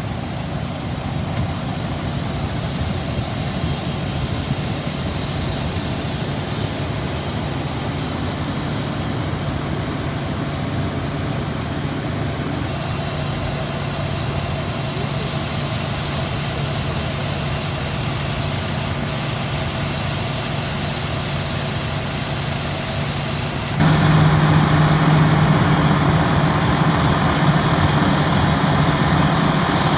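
Fire engine's diesel engine running steadily at pumping speed, supplying the attack hoses, a continuous low drone. About 24 seconds in it gets suddenly louder and closer.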